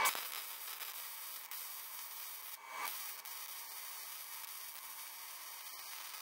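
Wire-feed welder arc on a steel mower deck bracket: a steady hissing crackle, with a short louder swell just under three seconds in.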